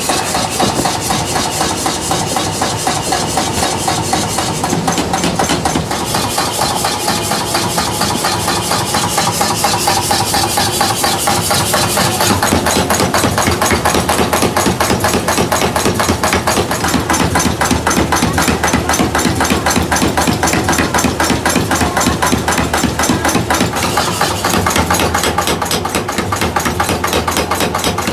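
Workshop machinery running continuously with a rapid, regular mechanical knocking, as from engine-driven metalworking equipment.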